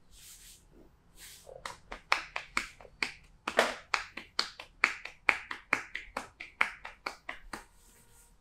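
Massage percussion: hands slapping and chopping on a back in a quick, even rhythm of about four strikes a second, after a couple of soft swishes of hands rubbing the skin.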